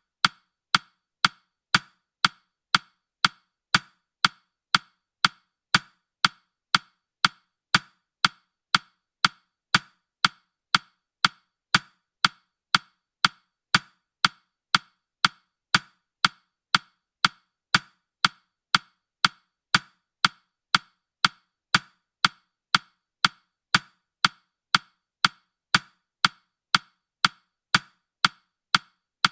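A clock-tick sound effect for a countdown timer: short, sharp woody ticks at a steady rate of about two a second.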